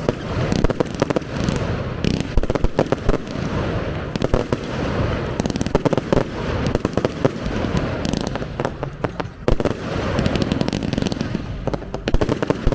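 Fireworks display going off continuously: rapid bangs and crackling bursts one after another, over a steady background of rumble and hiss.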